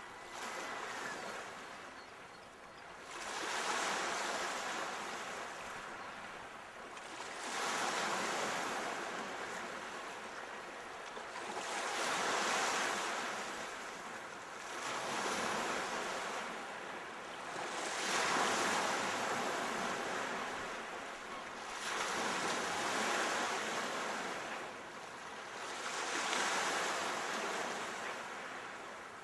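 Sea waves breaking and washing on a shore, each surge of surf swelling and fading about every four seconds.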